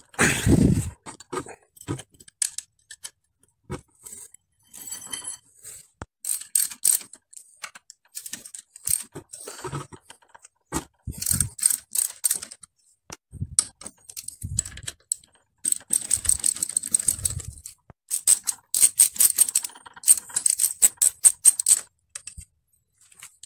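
Socket ratchet with a hex bit clicking in quick runs while undoing a bicycle's stem bolts, among scattered clinks and knocks of metal tools and parts. A dull thump comes right at the start.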